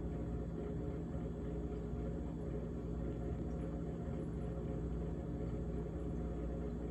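GE GTH18XCTZRBB refrigerator running with a steady low hum and a continuous rattle from the evaporator fan.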